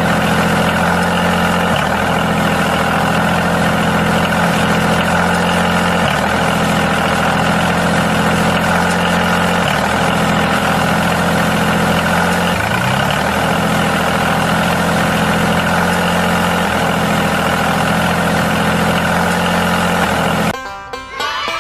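Steady tractor-like engine sound, running at an even pitch without change, that cuts off suddenly about a second before the end.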